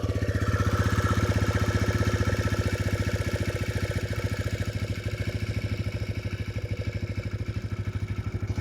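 TVS Raider 125's single-cylinder engine idling steadily with an even pulse and a tick-tick noise that the owner still hears after the tappets (valve clearance) were set; the service centre calls the tick common.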